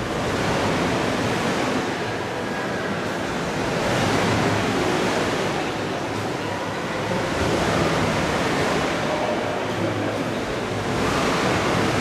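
Wave-pool water surging and breaking in big artificial waves, a steady rush of water that swells and eases about every three to four seconds.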